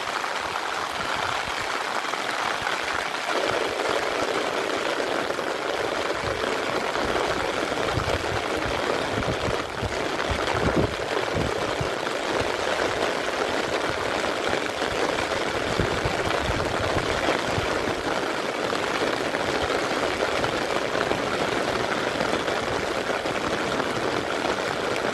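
Heavy rain falling steadily on flooded water and wet grass, an even hiss, with some low rumbling from about eight seconds in.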